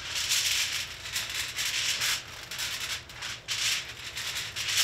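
A small handheld container shaken over food in quick repeated strokes, about two a second, each stroke a dry rattling hiss.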